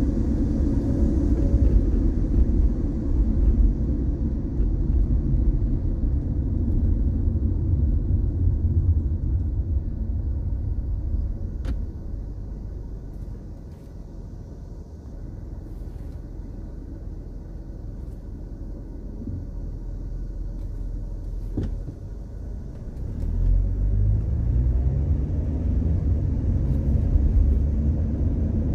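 A car driving on the road, with a steady low rumble of road and engine noise. The rumble eases off through the middle as the car slows, then swells again about two-thirds through with a rising engine note as it accelerates. Two sharp clicks are heard, about twelve seconds in and again about twenty-two seconds in.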